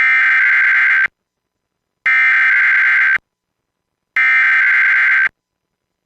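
Emergency Alert System SAME header tones: three harsh, buzzy digital data bursts, each about a second long with a second of silence between, the coded header that opens an EAS required weekly test.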